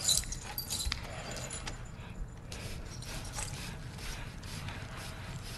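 Film soundtrack: irregular small clicks, knocks and rattles over a low steady rumble.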